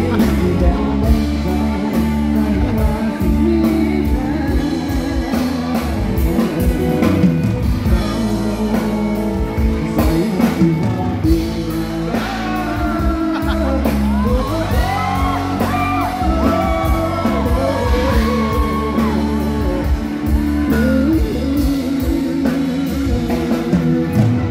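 Live band music with a man singing into a microphone through the stage sound system. Guitar is in the mix.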